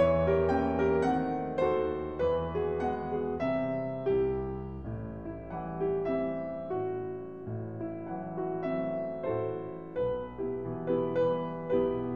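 Background piano music: a gentle melody of struck notes at an even pace over held low bass notes.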